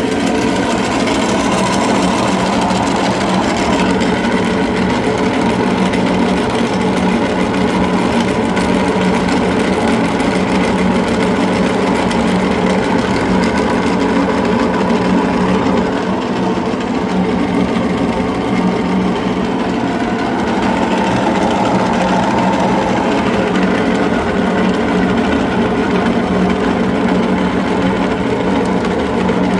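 Electric meat grinder running steadily under load, grinding cookies, with a continuous motor hum.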